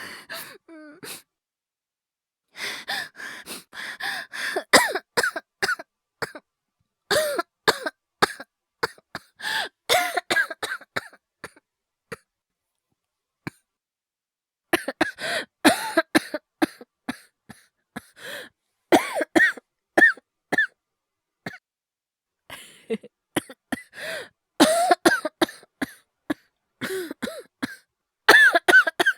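A voice actor's acted coughing: repeated fits of short, hacking coughs in quick clusters, broken by brief pauses, the longest about two seconds near the middle.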